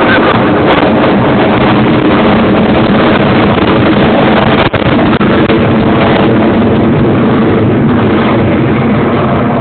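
Avro Vulcan B.2 bomber's four Rolls-Royce Olympus turbojets at full power, a loud, steady jet noise that overloads the phone's microphone, with wind noise on the microphone.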